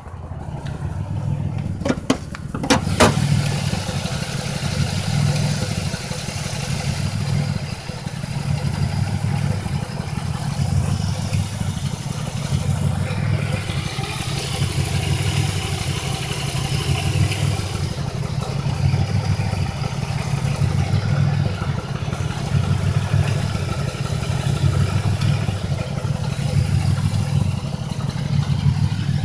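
2005 Chevy Impala's 3800 V6 engine running with a rhythmic stutter, a pulsing beat in its low drone about once a second. It is the sign of a cylinder 5 misfire (code P0305) that a new spark plug, plug wire and injector have not cured. A few sharp clicks come about two to three seconds in.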